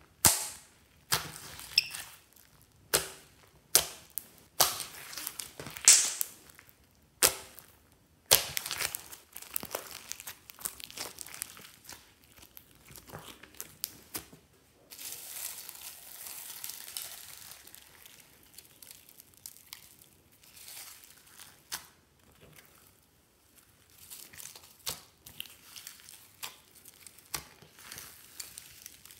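Hands squeezing and pressing slime: sharp pops of trapped air about once a second in the first eight seconds, then continuous crackly, squelching squishing with smaller clicks.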